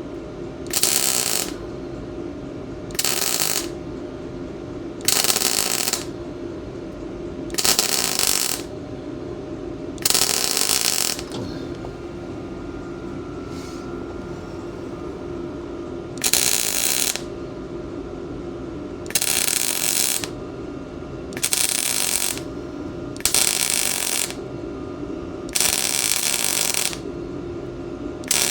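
MIG welder stitch welding thin steel tubing: about ten short bursts of crackling arc, each roughly a second long and spaced two to three seconds apart, with a longer pause midway, over a steady background hum.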